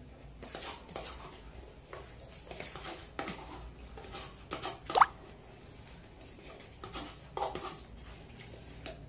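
A person eating instant cup noodles: scattered wet mouth sounds, smacks and chewing, with a sharp rising slurp about five seconds in.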